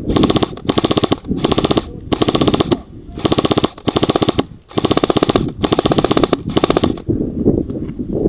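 Airsoft gun firing full-auto in about eight short bursts of rapid clatter, each about half a second long, stopping about seven seconds in.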